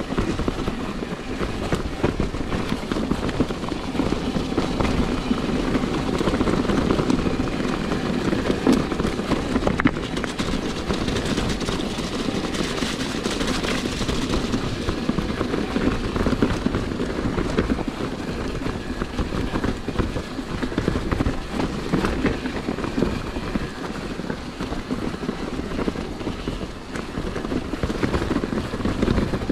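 A mountain bike being ridden over rough trail: a continuous rattling, crackling rumble from tyres and frame, dotted with many small sharp knocks.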